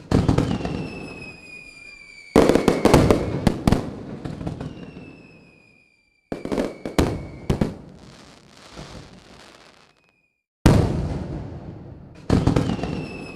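Aerial fireworks bursting in clusters of loud sharp bangs, each trailing off in a rumbling decay, with a thin high whistle sliding slightly down after several of the bursts. The sound cuts off abruptly twice.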